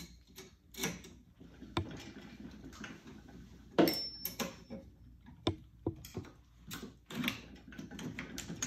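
Steel hand tools, a putty knife and a slim rod, clicking, tapping and scraping against a 1970 Camaro Z28 Hurst shifter held in a vise while the reverse bias spring is pushed in and held captive. The clicks come at irregular intervals, with one sharper knock about four seconds in.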